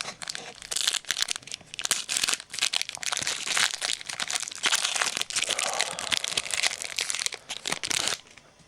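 Plastic wrapper of a trading-card pack crinkling as it is torn open and worked off the cards, a dense crackle that stops abruptly near the end.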